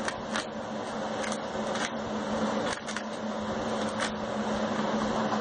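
Plastic blister packaging crackling a few times as a hand handles it, over a steady low hum and hiss.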